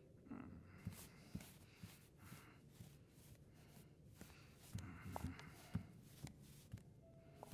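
Near silence: faint room tone with a few soft, irregular taps and rustles.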